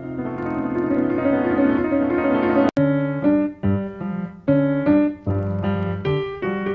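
Background piano music: a flowing melody, broken off suddenly with a click a little under three seconds in, then short, bouncy chords with gaps between them.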